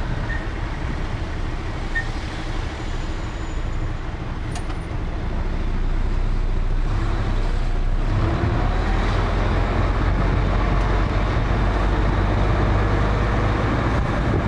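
Truck engine and road noise heard from inside the cab while driving in city traffic: a steady low rumble that grows louder about halfway through, with a faint rising whine.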